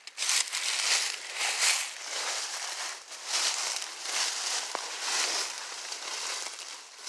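Footsteps crunching and rustling through dry leaves and brush, in irregular bursts about a second apart.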